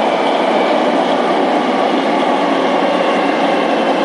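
Singapore MRT train running at speed between stations, heard from inside the car: a steady noise of wheels on rail and traction motors with a faint steady motor whine, the motor sound the uploader calls bad.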